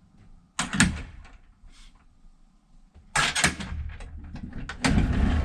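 Ropeway cabin doors and fittings clunking: a sharp knock about half a second in, a quick cluster of knocks about three seconds in, then a loud steady rush with more clicks near the end.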